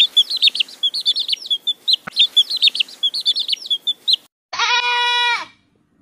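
Baby chicks peeping in rapid, high-pitched chirps for about four seconds, with a sharp click at the start and again about two seconds in. Then a young goat bleats once, for about a second.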